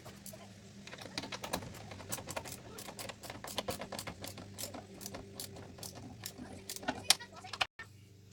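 Ratchet wrench with an extension clicking rapidly as bolts are tightened down, over a steady low hum. The sound cuts off abruptly near the end.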